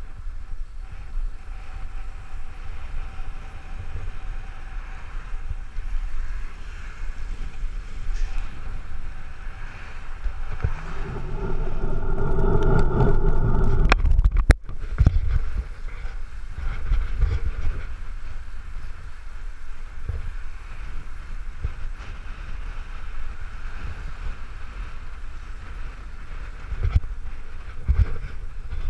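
Wind buffeting a bike-mounted action camera's microphone while riding a fixed-gear bicycle through traffic, a steady low rumble. About eleven seconds in, a louder steady hum swells and then cuts off suddenly.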